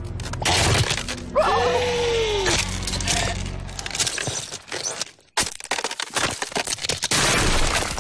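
Cartoon sound effects of a statue cracking and crumbling apart: a run of sharp cracks and crackles that thickens into a dense burst of crumbling near the end.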